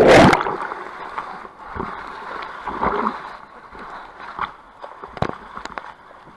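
Water splashing loudly at the very start, then river water sloshing and gurgling around a raft, with a few sharp knocks, the clearest about five seconds in.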